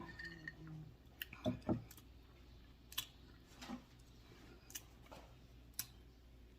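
Mouth sounds of someone eating: a handful of short, sharp wet clicks and smacks, spaced irregularly, with a brief murmur at the start.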